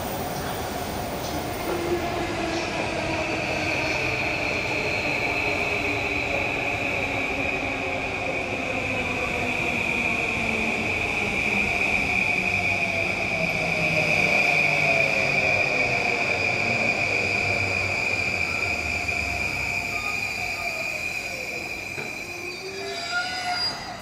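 Yamanote Line E235-series electric train running along the station track with a long, steady high-pitched squeal and lower tones gliding slowly down in pitch. It grows louder towards the middle and fades near the end.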